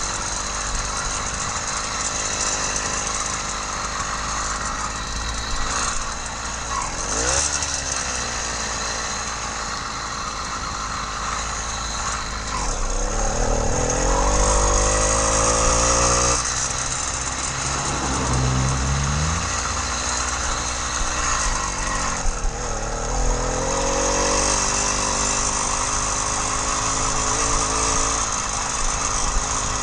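80cc two-stroke motorized-bicycle engine kit running under way on its first mile of running in. Its revs fall and rise several times, with a long climb in pitch about halfway through.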